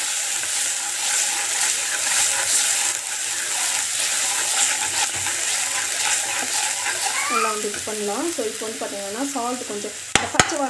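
Ground spice paste sizzling in hot oil in a pan as a spoon stirs it round, a steady frying hiss. From about seven seconds in a voice is heard in the background, and near the end come two sharp knocks.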